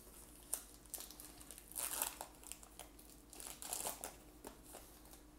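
Foil wrapper of a Topps baseball card pack crinkling and tearing in the hands, loudest in crackly bursts about two seconds in and again near four seconds.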